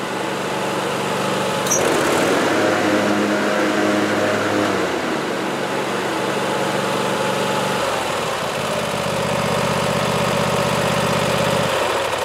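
Kohler engine of a Sears riding lawn tractor running steadily. Its note shifts around five and again around eight seconds in as the blade-engage knob on the temporarily bypassed deck switch is worked. The engine note cuts off just before the end.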